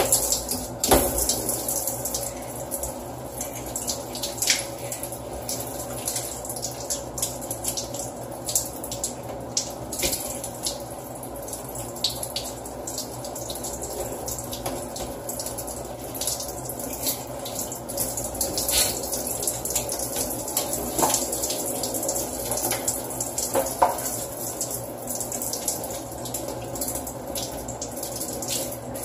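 Handheld shower head spraying water onto a black plastic piece of furniture, a steady hiss and splatter, with occasional knocks as the piece is turned and handled.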